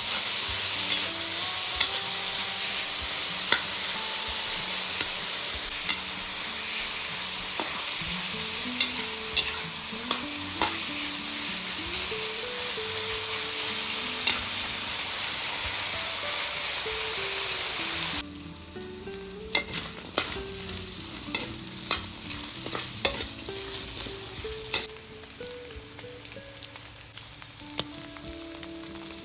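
Stir-fry of fermented pork and vegetables sizzling in a hot pan, with a spatula clicking and scraping as it stirs. About two-thirds of the way through, the sizzle suddenly drops to a much quieter level, and the stirring clicks go on.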